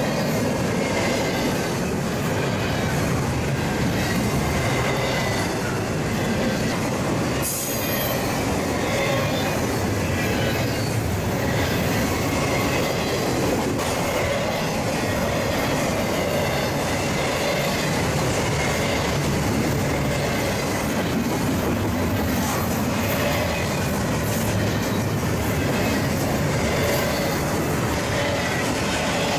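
Double-stack intermodal freight train's well cars rolling past at speed: a steady noise of steel wheels on rail with faint high squealing tones from the wheels.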